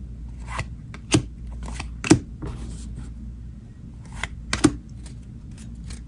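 2022 Panini Donruss football trading cards being flipped through by hand, each card snapping and sliding off the stack in short, sharp clicks at irregular intervals, the loudest about a second, two seconds and four and a half seconds in, over a low steady hum.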